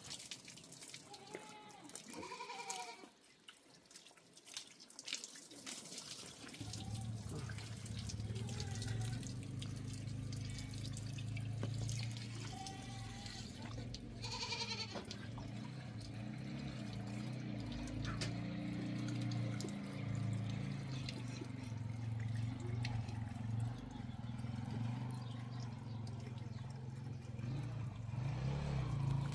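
A few short animal calls, a couple of seconds in and again about halfway. A steady low hum comes in about six seconds in and runs on under them.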